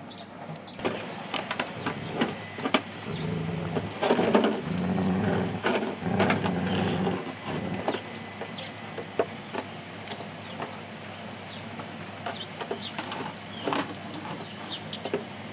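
Flat-coated retriever puppies playing and scuffling on paving stones, with many short taps and clicks. Low growly sounds come and go in three spells in the middle.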